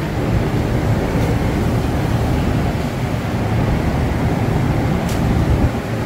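Steady low rumble of shopping-mall ambience, with a faint click about a second in and another about five seconds in.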